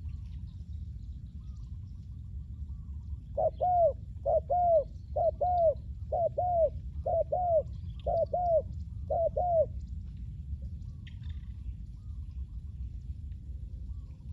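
Spotted dove cooing: seven double-note coos in a steady series, starting a few seconds in and stopping after about six seconds. A low steady rumble runs underneath, with faint small-bird chirps.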